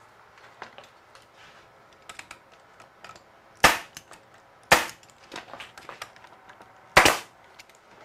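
A pneumatic stapler firing three times, driving 1.5-inch galvanized staples into the corners of a wooden box: sharp cracks, the first two about a second apart, the third some two seconds later, with light knocks of handling before them.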